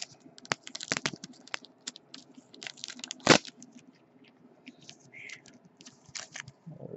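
Hard clear plastic trading-card holder handled by hand: a run of small clicks, taps and crinkly plastic scrapes, with one sharp loud click a little over three seconds in.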